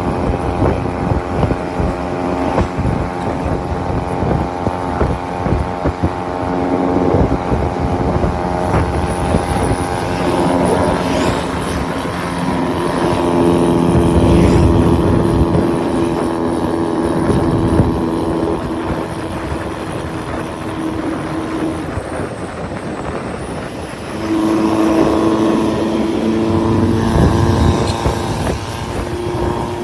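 Diesel vehicle engine running hard on a mountain road, its drone shifting up and down in pitch as the revs change. It grows louder about halfway through and again, suddenly, near the end.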